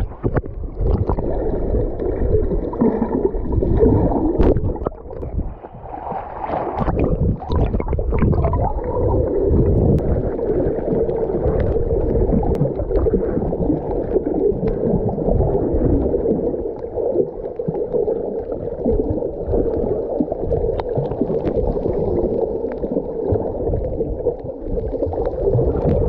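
Water sloshing and gurgling around a camera at the sea surface, with sharp splashes and knocks, then the muffled, steady underwater rush of the camera submerged while snorkeling.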